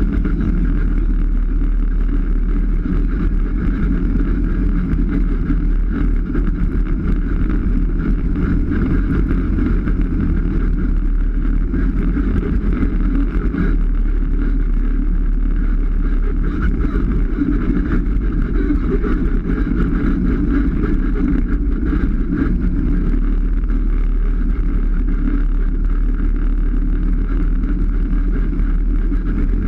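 Polaris RZR 570 side-by-side's single-cylinder engine running at a steady pace as the machine drives along a dirt trail.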